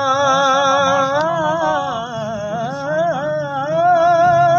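A man singing a manqabat, an Urdu devotional poem, unaccompanied, drawing out one long ornamented melismatic phrase with a wavering, bending pitch that settles on a higher held note near the end.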